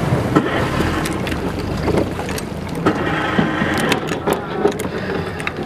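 Wind rumbling on the microphone in a small boat, with a few light knocks and clatters scattered through.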